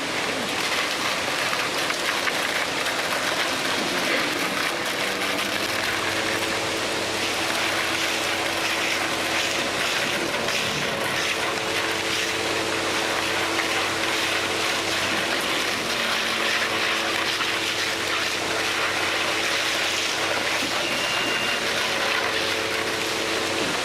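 A machine running steadily: a constant rushing hiss with faint, steady hum tones under it.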